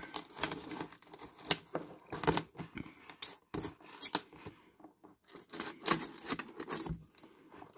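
Knife blade cutting and scraping through packing tape on a cardboard shoebox: irregular scratchy rasps and sharp clicks, with bits of tape tearing.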